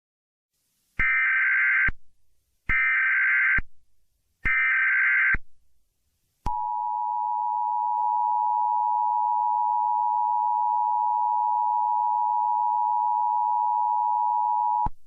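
Emergency Alert System tones: three bursts of SAME header data, about a second each with short gaps. Then the steady two-tone EAS attention signal, held for about eight seconds before it cuts off, marking the start of an emergency alert.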